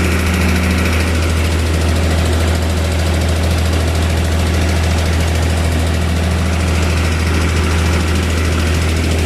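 Heavy machine's engine, likely the excavator's, running steadily with an even low hum.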